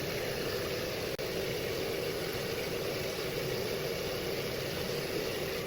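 Tap water running steadily into a sink, with a brief dropout about a second in.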